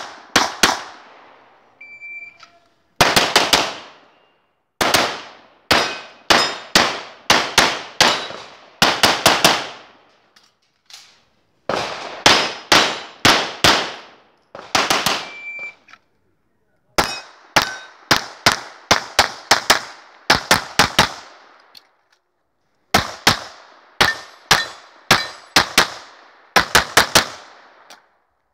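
Semi-automatic pistol fired in rapid strings, several quick shots at a time with brief pauses between strings as the shooter moves from position to position.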